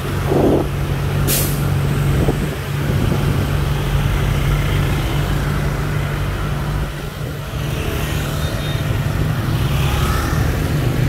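Road vehicle engines, a truck's among them, running steadily at close range in street traffic, with a short sharp hiss about a second in.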